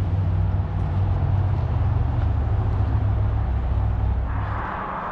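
Traffic passing close by on a busy road: a loud, steady low engine rumble that fades near the end, as the hiss of another passing vehicle rises.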